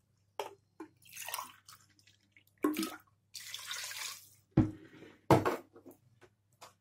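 Water poured from a steel tumbler into a pressure cooker pot in two pours, splashing onto the meat and vegetables. Sharp knocks of metal between and after the pours, the loudest a little past halfway.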